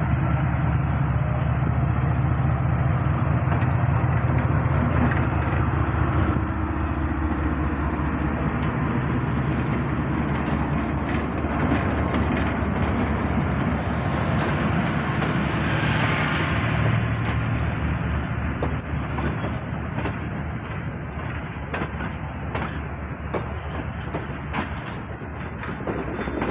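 Pakistan Railways diesel-electric locomotive pulling away with a train, its engine drone loudest in the first several seconds as it passes close by. The passenger coaches then roll past with a steady rumble, and their wheels click over the rail joints near the end.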